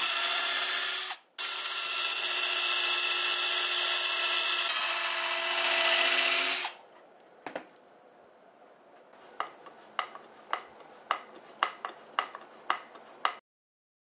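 Cordless drill running as it bores pilot holes into pine 2x2 lumber: a steady whine that drops out briefly about a second in, then runs on and gets louder before stopping near seven seconds. After a pause comes a run of about a dozen sharp clicks, roughly two a second, as a wood screw is turned in with a hand screwdriver.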